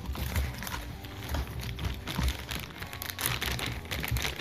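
Clear plastic zip-lock bag crinkling and crackling as it is handled and pulled open at its zip seal, in irregular small crackles.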